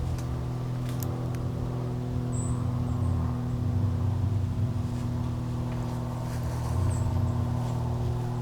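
A steady engine drone holding one pitch, with a low rumble beneath it and a few faint high chirps.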